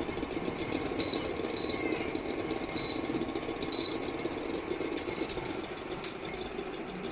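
Induction cooktop's control panel beeping four times, short high beeps as the power is stepped down to reduce the heat under a boiling pot, over a steady background hum.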